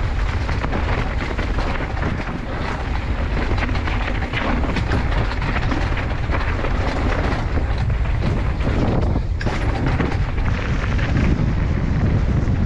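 Mountain bike descending a rough dirt trail: steady wind on the microphone over the rattle of the bike and many small knocks from the tyres and frame on the ground.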